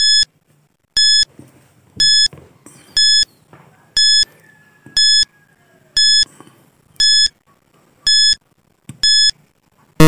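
Countdown timer sound effect: a short electronic beep once a second, ten beeps in all, marking the seconds as the timer counts down from ten.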